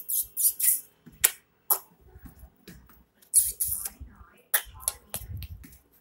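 Scuffling and rustling of a small dog playing on a carpet: irregular short hissy rustles, a few sharp clicks and soft thumps.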